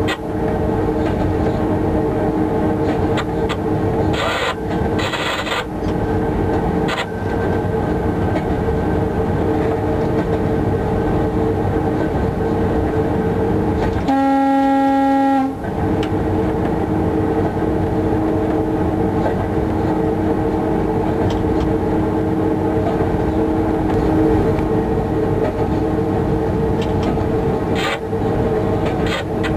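Cab noise of an electric locomotive running at about 58 km/h: a steady hum from its equipment over the rolling noise. About halfway through, the locomotive's horn sounds once for about a second and a half.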